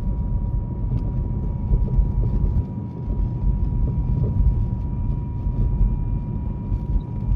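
NOAA Weather Radio 1050 Hz warning alarm tone, one steady unbroken beep: the alert signal that comes before a warning broadcast, here a tornado warning. Heavy low rumbling noise runs underneath it.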